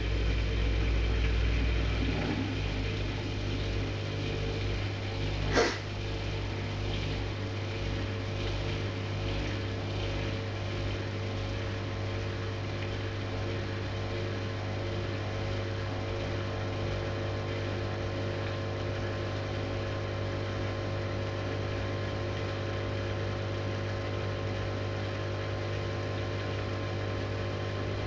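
Hyundai DW 6012BG dishwasher running: a steady motor hum with a sharp click about five and a half seconds in.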